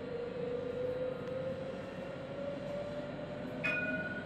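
Electric tram running on street track: the traction motor whine rises slowly in pitch as it gathers speed, over a steady rumble of wheels on rails. About three and a half seconds in, a short sharp click with a brief high ring.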